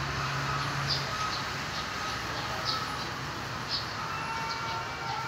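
Cats courting, with faint, drawn-out yowls: a low held tone about a second in, and another building from about four seconds in. Steady background noise and short high chirps, repeating about once a second, sound behind them.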